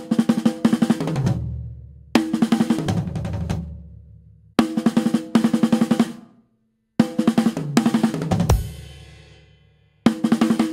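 Drum kit fills played with sticks: a short '1 and a 2 e and' rhythm on the snare and toms, sticked right, right, left, right, left, right, followed by a run of sixteenth notes. The fill is played four times, each group of quick strokes ending in a low tom ringing out; a cymbal rings briefly after the fourth, and a fifth fill starts near the end.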